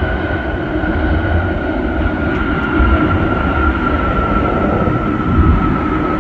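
Boeing 747's four jet engines on the landing roll: a steady rumble under a high whine that slowly falls in pitch.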